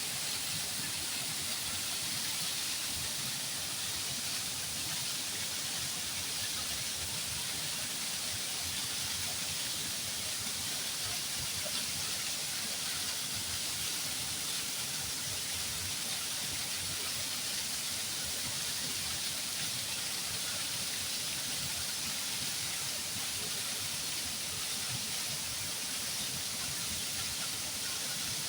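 Flowing water, a steady even rushing that does not change.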